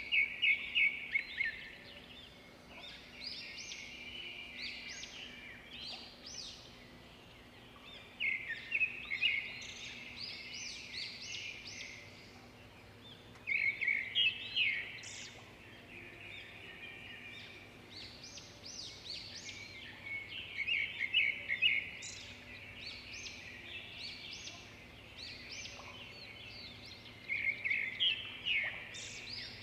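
Small birds chirping and singing in bursts of quick high notes, a few seconds apart.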